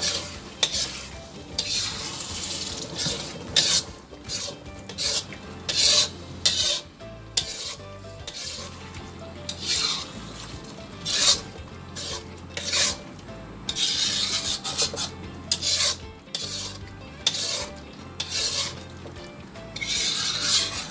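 Steel spoon stirring and scraping thick mutton curry around a black metal karahi, in repeated scraping strokes against the pan, as the cream is mixed in during the final frying.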